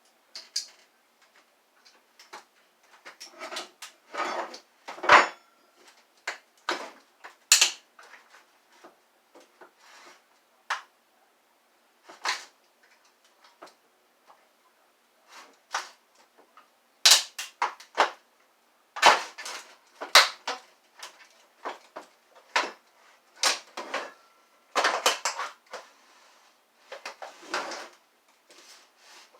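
Irregular clicks, knocks and scrapes of hard plastic as a Kenmore vacuum is pried and pulled apart by hand, with a few longer scraping stretches among the sharp knocks.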